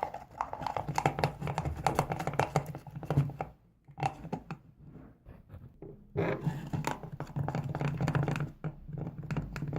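PVA glue and paint being stirred with a utensil in a container: rapid clicking and scraping against the container, with a pause of a couple of seconds midway.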